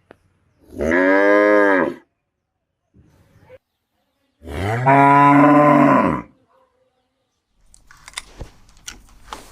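Cow mooing twice, two long calls that rise and then fall in pitch, a couple of seconds apart. Faint clicks and rustling follow near the end.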